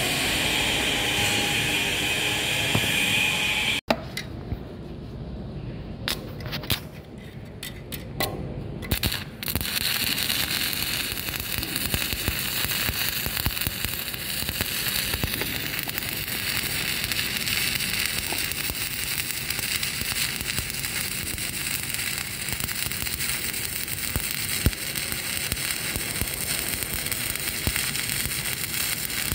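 Shielded metal arc (stick) welding with an LB-52 7016 low-hydrogen electrode at 70–80 amps: the arc runs in short, broken spells between about four and nine seconds in, then runs steadily from about ten seconds in.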